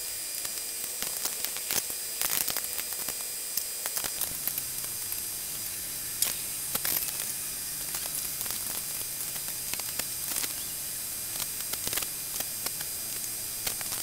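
Scattered small metallic clicks and taps of bandsaw blade-guide parts being handled and fitted, over a steady hiss.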